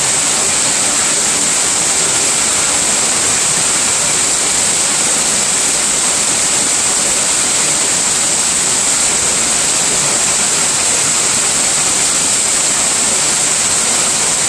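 Heavy rain, with runoff pouring in a sheet off a porch roof edge and splashing onto the ground. A steady, loud rushing hiss that does not let up.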